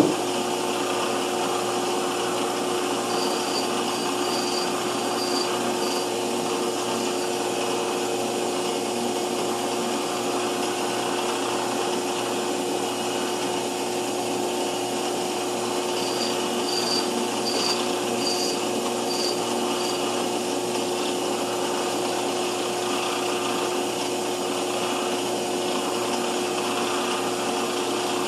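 Small metal lathe running at a steady speed with a constant hum while its turning tool cuts bronze bar stock. Two short runs of faint, high, evenly spaced ticks come through, once early on and again about two-thirds of the way in.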